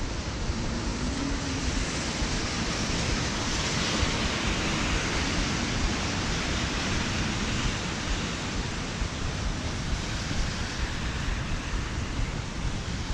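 Rain falling on an umbrella mixed with tyres hissing through water on a busy wet street, a steady wash of noise over a low traffic rumble. The hiss swells about three seconds in and eases again after about seven seconds.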